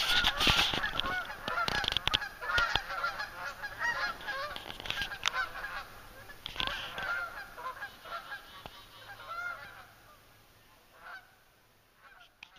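A flock of geese flying overhead, many overlapping honks that fade away over the last few seconds.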